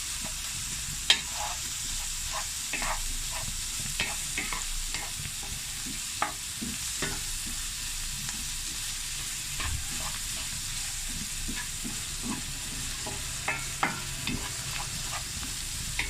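Minced meat (kefta) with onion and peppers sizzling in a frying pan, with a steady hiss. A utensil stirring it knocks and scrapes against the pan at scattered moments.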